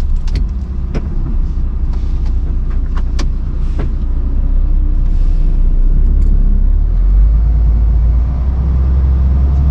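Heavy lorry's diesel engine running with a steady low rumble that grows louder near the end, with a few sharp clicks and knocks in the first few seconds.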